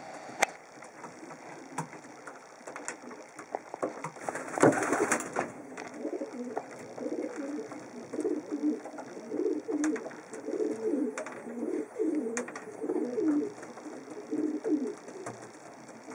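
Racing pigeon cooing: a run of repeated low coos through the middle of the clip. There is a brief scuffling burst about four and a half seconds in and a few sharp clicks.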